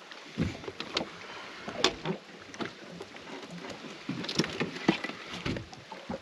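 Scattered knocks, clunks and clicks from gear being handled in an open deck storage hatch of a bass boat, the loudest about two seconds in and again near five seconds, over a light wash of water and wind.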